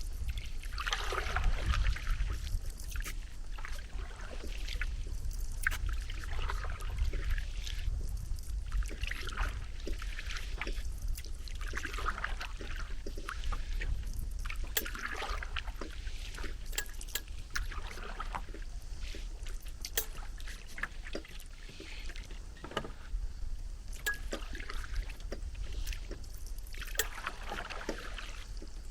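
Paddle strokes in water, each a swish and drip, recurring about every three seconds.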